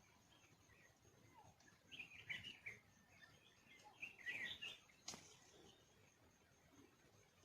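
Faint bird chirping in the wild: two short bursts of high chirping notes, about two and four seconds in, followed by a single click.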